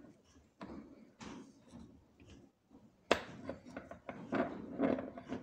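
Handling clatter of a C-clamp and cloth buffing wheel being taken off and repositioned on a homemade ball vise: light clicks and scrapes, a sharp knock about three seconds in, then a busier run of small knocks and rattles.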